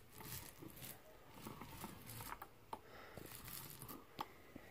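Faint, uneven wet rasping of a paint roller rolling thinned drywall mud onto a wall, with a couple of light clicks near the end.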